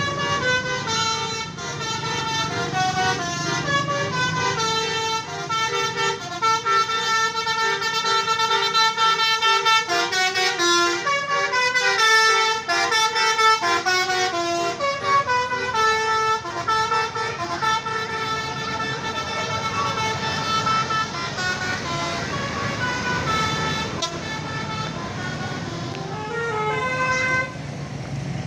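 Bus telolet horn, a Basuri multi-tone horn, playing a long melody: several notes sounding together and stepping up and down in pitch every fraction of a second. The tune changes pattern and thins out near the end.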